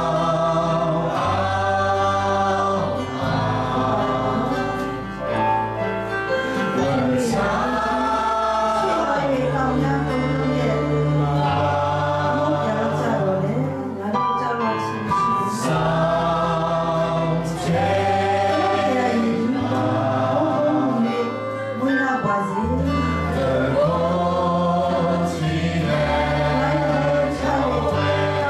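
Congregation singing a worship song together over instrumental accompaniment, its low notes changing chord every second or two.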